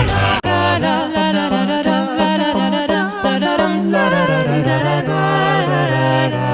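A cappella vocal music: several voices singing together in harmony, with a brief break about half a second in.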